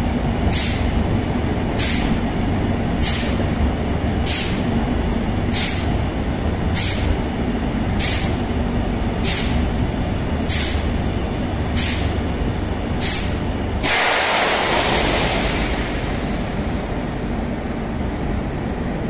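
Madrid Metro 2000A series train running through a tunnel with a steady rumble. A short high hiss repeats about every second and a quarter for most of the stretch. About fourteen seconds in, a louder hiss starts and fades over some two seconds.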